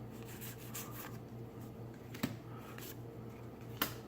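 Magic: The Gathering trading cards being handled and flipped through a stack: soft rustling with light card snaps, a sharper snap about two seconds in and another near the end, over a low steady hum.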